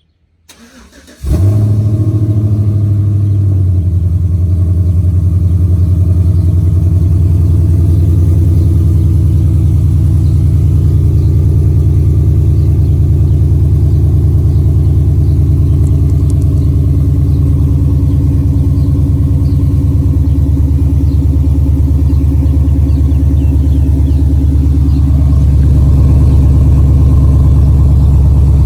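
GMC Sierra pickup engine cranked briefly and catching about a second in, running a little higher at first, then settling into a steady idle.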